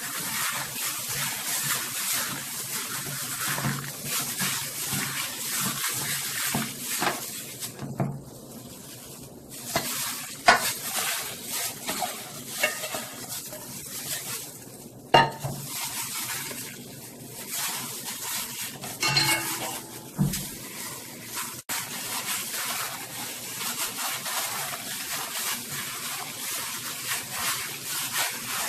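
Duck meat being mixed and squeezed by hand in a metal mixing bowl with a thick red pepper-paste marinade: continuous wet squelching and rustling, with a couple of sharper knocks against the bowl about ten and fifteen seconds in.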